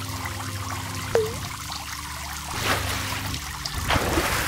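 Trickling, running water over a low steady hum, with a short falling-then-rising blip about a second in and two brief rushes of noise near the end.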